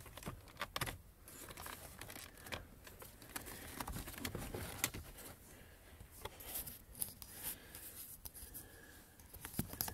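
Faint, scattered rustling and small clicks of a hand handling the phone close to its microphone, with light taps against the plastic dash panel.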